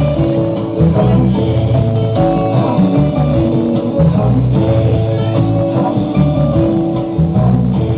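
Instrumental passage of an upbeat Italian folk-pop song, with guitar over a steady bass beat.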